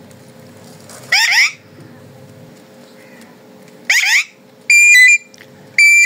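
Rose-ringed parakeet calling: four short, loud squawks. The first two are quick chirps rising in pitch, about a second in and about four seconds in; the last two, near the end, are louder, shrill and held on one pitch.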